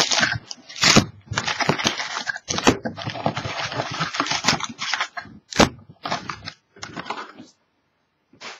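Shiny foil trading-card packs crinkling and rustling as they are pulled from a cardboard box and laid down in stacks, with a sharp click about halfway through.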